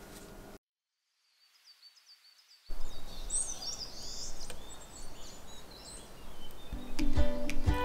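Small birds chirping and twittering in outdoor ambience, after a short break of silence; music comes in near the end.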